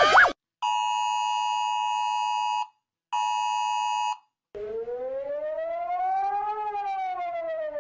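Emergency alert alarm: two steady electronic alert-tone blasts, the second shorter, with a brief gap between them, then a siren-like wail that slowly rises and falls in pitch.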